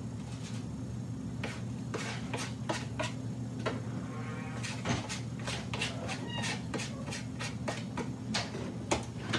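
Dishes clinking and knocking on a kitchen counter as they are handled, a couple of dozen short sharp clinks scattered irregularly, over a steady low hum.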